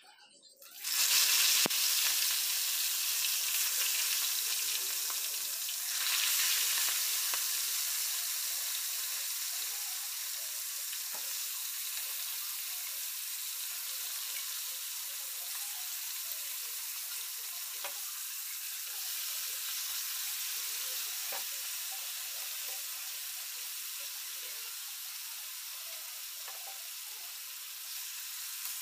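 Marinated pork chop pieces and potato slices frying in hot oil in a pan: a sudden loud sizzle about a second in as they hit the oil, swelling again around six seconds in. It then settles into a steady frying hiss that slowly eases, with a few light clicks as pieces are added and moved.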